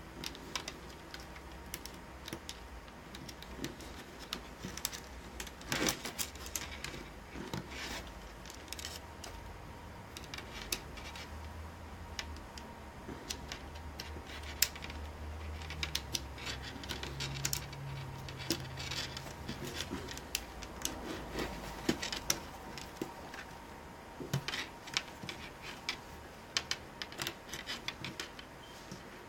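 Irregular small clicks, taps and light scraping of hands working on an opened laptop, pressing and routing its screen cables back into place around the hinge.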